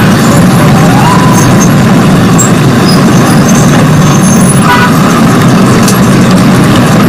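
Very loud, distorted, steady rumble like heavy street traffic, with a brief rising tone about a second in.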